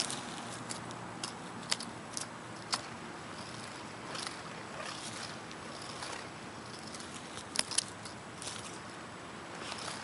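Dry grass and dead leaves crackling in a few short, sharp clicks as a cat rolls about on them, two of them close together near the end, over a steady outdoor background noise.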